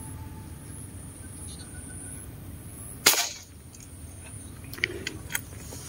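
A single airgun shot about three seconds in, one sharp crack firing a fishing dart into the water, over a low steady background hiss.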